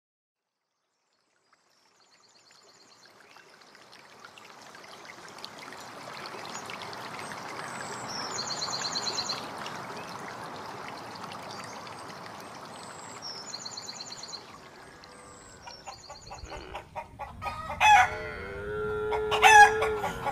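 Outdoor farm ambience: a steady rushing background with short high bird trills every few seconds. Near the end, chickens start clucking loudly and a rooster crows.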